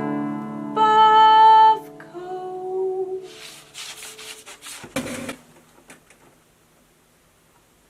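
The end of an acoustic guitar song. A low chord rings out and a voice holds a final note for about a second, then a lower hummed note follows. A few scratchy noisy strokes and a sharp knock come near five seconds, and then the sound dies away to silence.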